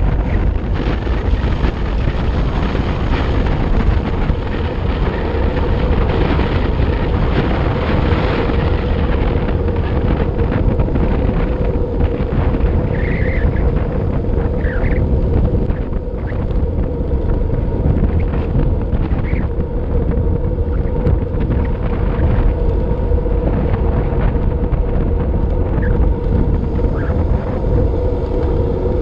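Steady loud rush of wind across an action camera's microphone as a road bike descends at speed, with a steady hum underneath and a few short high chirps about halfway through.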